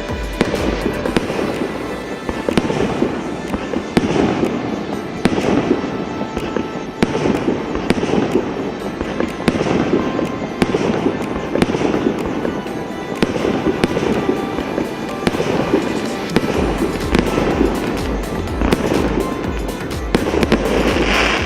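A 72-shot consumer fireworks cake (Big Boss СС8811) firing, with a dense run of launches and bursts following one another throughout.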